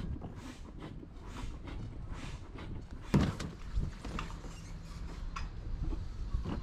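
Handling noise from an inflatable dinghy and its fabric floor cover being pulled about. There is one sharp knock about three seconds in and a few lighter clicks, over a low rumble, with a faint steady hum for a couple of seconds after the knock.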